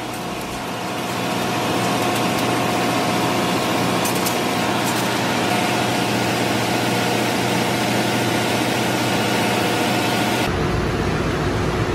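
Ship's engine-room machinery running: a steady, loud drone with a few constant tones in it, swelling over the first second or two and then holding even.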